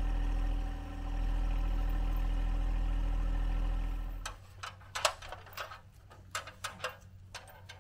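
John Deere 1025R compact tractor's three-cylinder diesel engine idling steadily. It stops about four seconds in, giving way to a series of light clicks and knocks.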